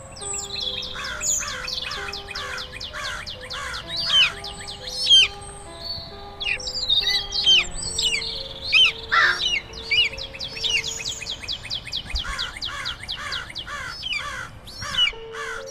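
Birds chirping in fast runs of short, high notes, with a slow, simple melody of held notes playing underneath.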